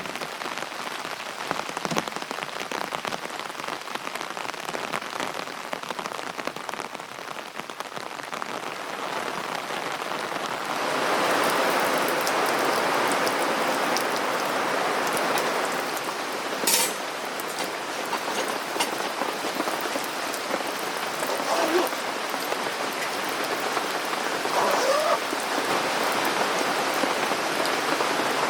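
Rain pattering steadily, with many small drop hits, growing heavier about eleven seconds in.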